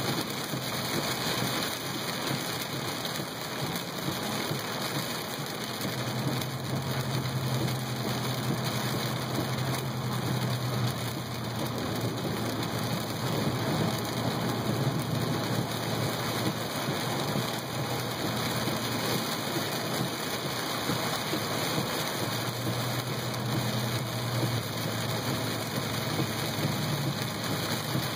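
Heavy rain beating steadily on a moving car, heard from inside the cabin. A low hum comes in twice, once after about six seconds and again near the end.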